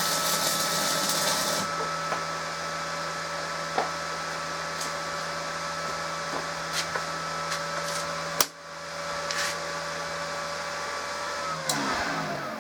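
Resanta 190K welding inverter running with a steady cooling-fan hum, working normally after repair. A hiss stops about a second and a half in, and a few sharp clicks follow. Near the end the hum winds down as the machine is switched off.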